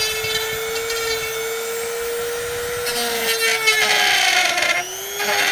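Handheld rotary tool with a grinding bit running at a steady whine, then cutting into plastic about three seconds in. Its pitch sags under the load and rough grinding noise joins it. It eases off briefly near the end, as he shaves material from around a hole so that two parts fit snugly.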